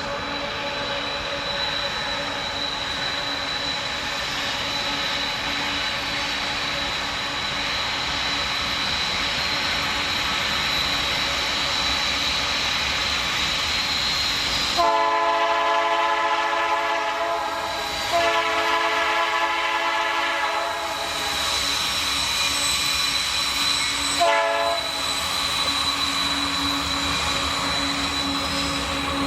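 Freight train running past on the rails with a steady high whine over the wheel noise, sounding its multi-tone horn: two long blasts back to back around the middle, then a short blast a few seconds later.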